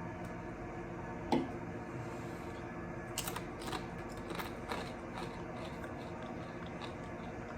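Someone chewing a crunchy chip dipped in hot sauce: a string of irregular short crunches, the first and loudest about a second in, fading out around five seconds in, over a steady low hum.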